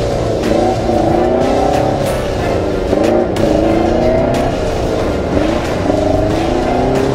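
UAZ-469's 2.4-litre four-cylinder petrol engine revving up and down under load as the jeep churns through deep mud, its pitch rising and falling every second or so over a rough low rumble.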